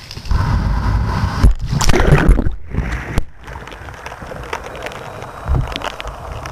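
Water gurgling and sloshing close to a kayak at the waterline, with small drips and splashes. A loud low rumble fills the first half, cut by two brief dropouts, before it settles to a steadier, quieter water noise.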